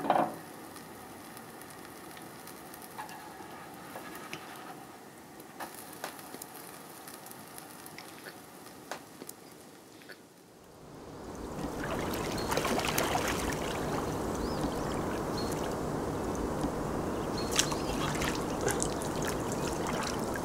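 Quiet room tone with a few faint clicks for about the first ten seconds. Then pond water trickles and splashes steadily as bare feet swing in it, with a few sharper splashes.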